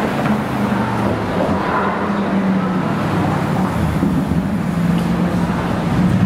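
Mercedes-AMG S65L's 6.0-litre twin-turbo V12 running steadily at low revs as the car drives slowly past and away, echoing in an underpass.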